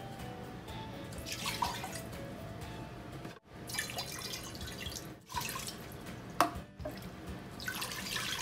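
Water poured from a measuring cup into a stainless steel pot, in several separate pours of a second or so each, splashing on the metal. Faint background music plays underneath.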